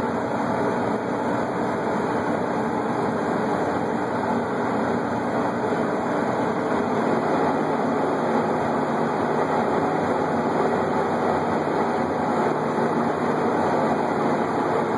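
Peterbilt winch truck's diesel engine running steadily while it powers the winch pulling a heavy motor package onto the truck, heard from inside the cab.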